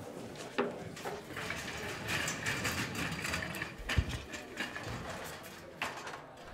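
Clothes rustling and hangers clicking and scraping on a metal clothes rail as someone rummages through it, with a dull thump about four seconds in and a sharp click near the end.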